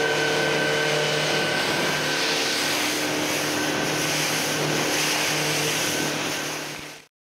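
115 hp outboard motor running steadily at cruising speed, with the rush of spray and wind over the hull as the boat planes across choppy sea. It fades out near the end.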